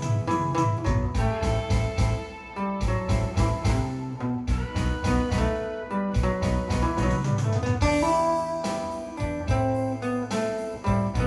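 Guitar-led instrumental music: many quick plucked and strummed notes over a steady, pulsing bass beat.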